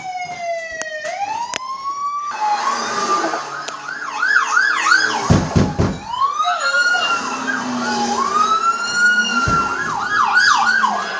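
Emergency sirens wailing and yelping, several overlapping. A long falling wail at the start gives way, a couple of seconds in, to fast up-and-down yelps mixed with slower rising-and-falling wails.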